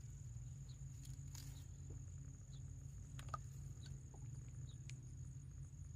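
Quiet background of a steady low hum and a steady high-pitched tone, with a few faint, small clicks scattered through.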